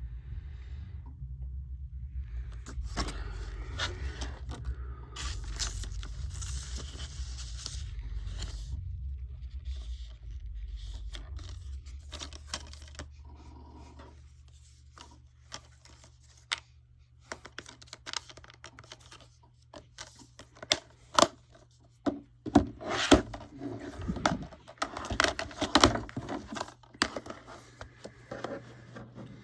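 Cardboard slipcover and box-set packaging being handled: rustling and scraping for the first half, over a low hum that fades out, then a run of sharp clicks and knocks in the second half.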